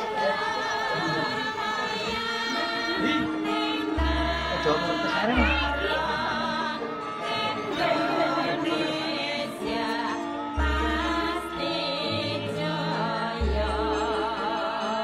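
Music with a singer's strongly wavering voice over melodic instruments, with three long deep bass notes.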